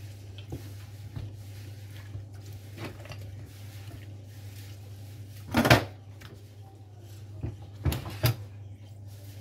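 Thuds and knocks of a raw whole chicken being handled and turned over on a wooden cutting board while it is rubbed with a cut lemon. There is one loud thud a little past halfway, then a few smaller knocks near the end, over a steady low hum.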